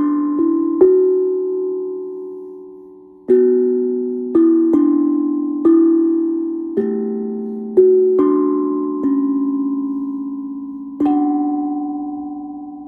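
Steel tongue drum struck with a mallet, playing a slow melody of single notes, each ringing on and slowly fading under the next. After a quick run of three notes there is a pause of nearly three seconds, and the last note, near the end, is left to ring out.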